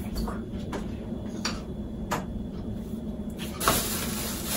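Rustling of hair and clothing as a woman adjusts her hair. There are a few light clicks early on, then a longer rustle about three and a half seconds in, over a steady low hum.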